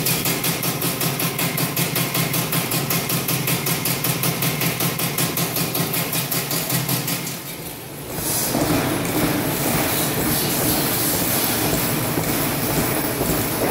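Sweed Model 5503 XHD scrap wire chopper cutting stranded wire as it is fed in: a rapid, even chatter of cuts over the steady run of the machine. Just before halfway the sound dips briefly, then the machine runs on steadily.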